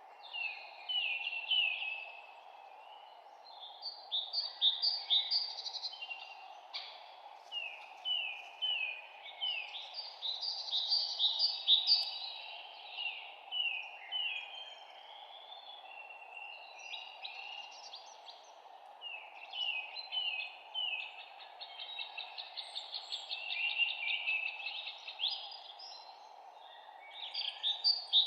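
Songbirds chirping in quick runs of repeated notes, phrase after phrase with short pauses between, over a steady background hiss.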